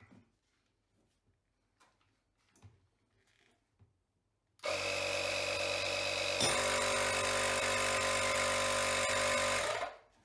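Makita MP180D cordless inflator switching on and running steadily for about five seconds, its small compressor pumping air into a motorcycle front brake caliper to force the piston out. A sharp pop comes partway through as one caliper piston comes free, and the pump runs on and stops just before the end.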